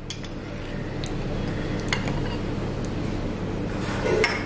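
A few faint clinks of a steel spoon against a small glass bowl as ground black pepper is spooned out, over a steady low background hum.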